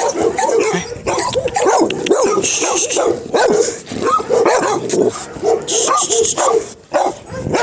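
Several dogs barking and yipping over one another, nearly without pause.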